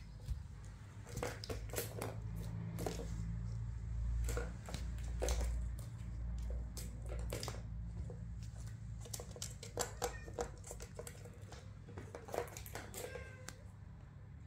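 Hard plastic clicks and rattles from a pink plastic ball-track tower toy as kittens paw the balls around its tracks, in irregular knocks with the sharpest a little before the middle and about twelve seconds in. A few faint kitten meows come near the end, over a low rumble that swells in the middle.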